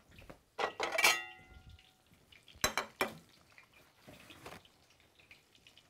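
Metal kitchenware being handled and set down: a ringing metal clang about a second in, then two sharp knocks near the three-second mark and some softer clatter after.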